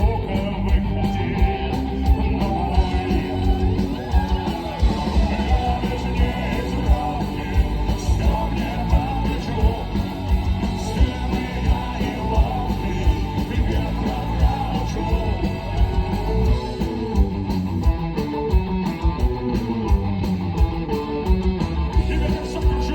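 Rock band playing: guitar over a steady drum beat, with singing.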